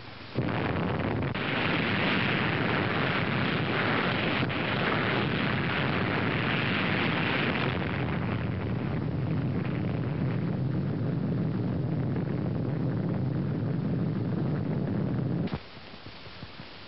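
Explosion noise of an underwater atomic bomb blast on an old film soundtrack: a dense, steady rumble that starts abruptly about half a second in, holds for about fifteen seconds, then cuts off sharply to faint film hiss.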